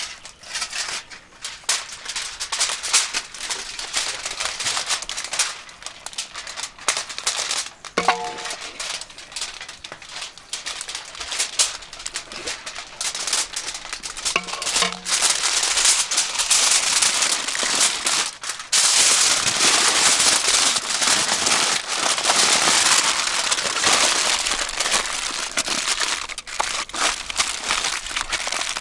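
Aluminium foil crinkling and crackling as hands handle it and fold it into a wrapped parcel. The crinkling grows denser and louder about halfway through, as the foil is folded up and pressed.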